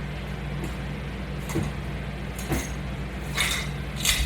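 A steady low hum, with four short scuffing noises in the second half, as of a person shifting on the floor while getting into position for a sit-up.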